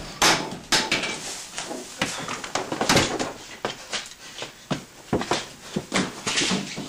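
A quick, irregular jumble of knocks, thumps and rustling from a person hurrying about and handling household objects, with the sharpest knock about three seconds in.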